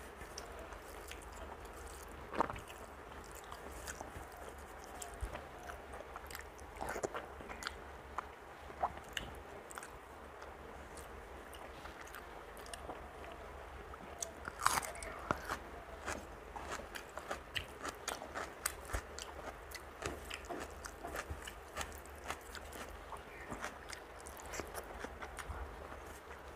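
Close-up mouth sounds of a person eating rice and curry by hand: wet chewing with many small smacks and clicks, and a louder crunchy bite about fifteen seconds in.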